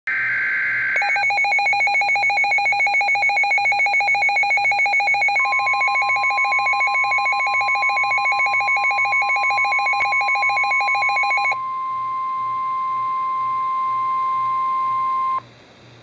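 NOAA Weather Radio receiver sounding a warning alert. About a second of two-tone warbling data burst comes first, then a rapid, evenly pulsed electronic beep. About five seconds in, the steady single-pitch warning alarm tone joins it. The beeping stops about eleven seconds in, and the steady tone cuts off suddenly near the end.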